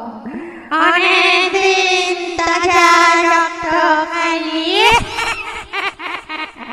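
Eerie horror sound effect: several wavering, voice-like tones layered over a steady low hum, coming in after a brief dip about a second in, with a sharp rising glide about five seconds in.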